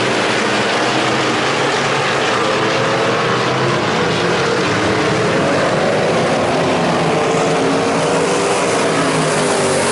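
A pack of IMCA stock car V8 engines running around a dirt oval under race power, several engines heard at once with their pitches drifting slowly up and down as the cars circle.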